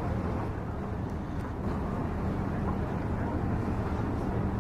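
Steady low drone of a lake passenger ship's engine carrying across the water, under an even rushing noise.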